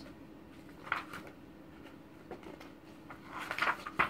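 Pages of a glossy magazine being handled and turned: a few soft rustles and light clicks, about a second in and again near the end, over a faint steady hum.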